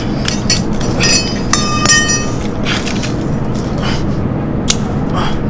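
Steady low rumble with scattered clicks, and a brief ringing clink a little over a second in.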